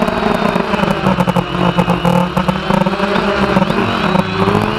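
Quadcopter motors and propellers whirring loudly, heard from a camera on the drone itself: a steady buzzing hum whose pitch shifts a little as the drone manoeuvres, with a fine rattle from the airframe's vibration.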